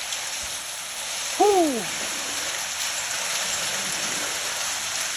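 Heavy rain mixed with hail pouring down in a severe thunderstorm, a steady dense hiss. About a second and a half in, a man lets out a loud, falling 'whew.'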